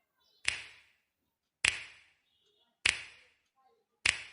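Four sharp clicks, evenly spaced a little over a second apart, each with a brief ringing tail and near silence between them.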